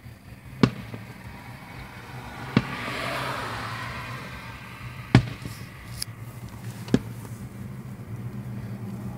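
Aerial firework shells bursting: four sharp booms, roughly two seconds apart.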